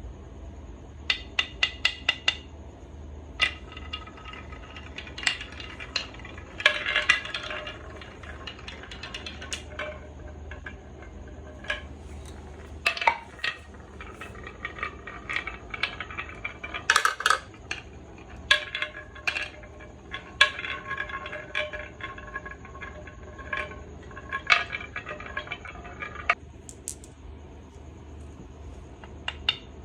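Marbles clicking and rattling through a marble run: clusters of sharp clicks, many followed by a brief ringing tone, with longer stretches of rolling rattle and ringing about 7 seconds in and between about 18 and 26 seconds in.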